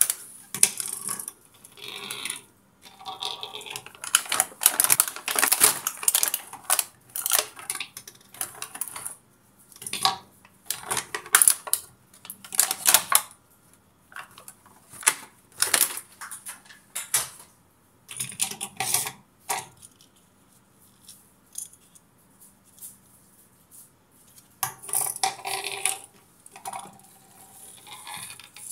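Clear plastic blister packaging crinkling and crackling as small toy fighter jets are pulled out of it, with light clicks and clinks as the toys are set down on a hard tabletop. The sounds come in irregular bursts with short pauses between them.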